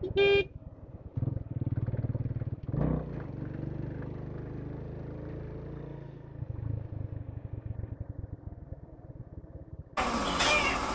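Motorcycle engine running as the bike rides along a rough dirt road, a steady low engine beat that swells briefly a couple of times. About a second before the end the sound cuts abruptly to louder workshop background.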